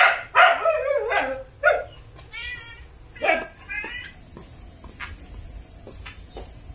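Dog barking several times, then yipping and whining in wavering calls, all within the first four seconds before it goes quiet.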